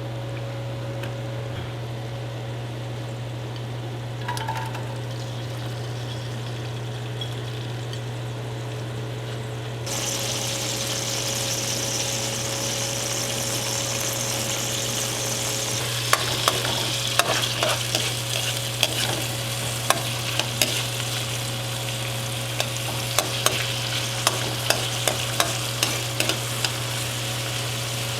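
Food frying in hot oil in a pan: the sizzle jumps up about ten seconds in as something goes into the oil. From about halfway on, a utensil stirs and taps against the pan. A steady low hum runs underneath.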